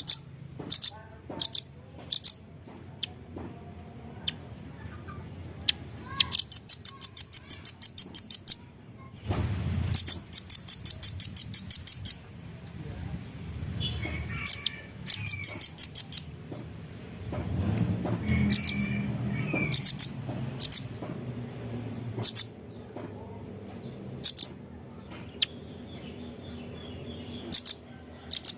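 Velvet-fronted nuthatch calling: sharp, high single chips and several rapid trills of the same note repeated about six times a second, each trill lasting around two seconds.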